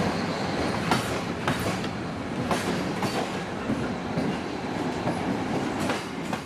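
Passenger train running, heard from aboard a carriage: a steady rumble of the wheels on the track with several sharp, unevenly spaced clacks.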